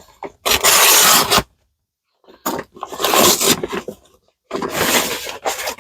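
Cardboard packaging being scraped and torn open by hand, in three long noisy bursts with short pauses between them.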